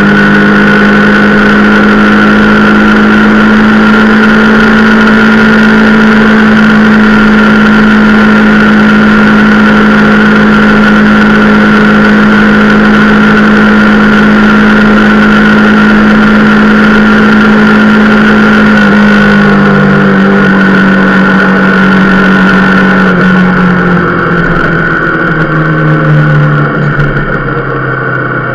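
Rieju Marathon Pro supermoto's single-cylinder engine running at a steady cruising speed, then dropping in pitch in two steps near the end as the bike slows.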